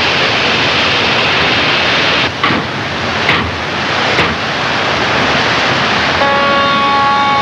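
Steady rushing sea and wind noise, broken by three sharp reports about a second apart: a three-barrelled Limbo anti-submarine mortar on a destroyer escort firing its salvo. A held chord of steady tones comes in near the end.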